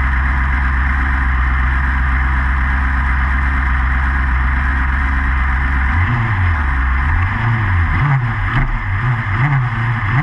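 Yamaha R6 inline-four sportbike engine idling steadily, then blipped several times from about six seconds in, the pitch rising and falling with each blip.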